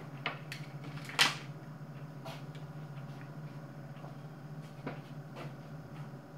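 Kitchen handling noises: a few short knocks and clicks of containers and things being picked up and put down on the counter, the loudest about a second in, over a steady low hum.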